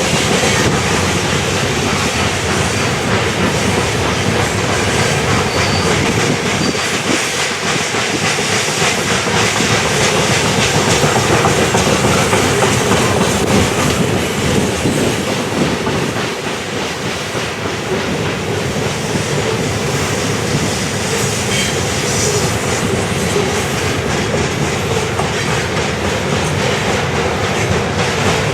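BNSF freight train rolling past steadily, its cars' steel wheels running on the rails.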